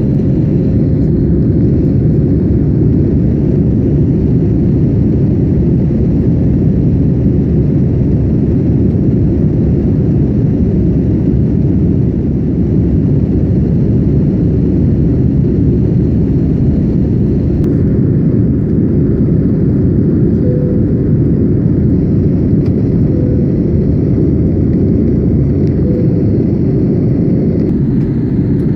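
Airbus A321neo jet engine noise: a loud, steady low rumble that holds even, without rising or falling.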